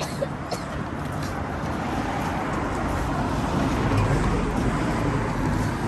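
City street traffic: a motor vehicle passing close by, its engine and tyre noise building to a peak about four seconds in and then easing.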